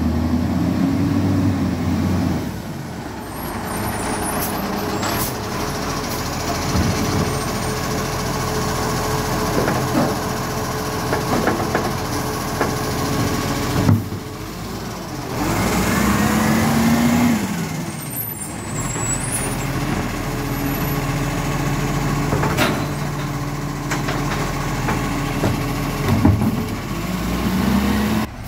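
Side-loading garbage truck working a row of wheelie bins. Its diesel engine revs up and falls back three times as the hydraulic arm grabs, lifts and empties the bins, with a sharp clunk about halfway through.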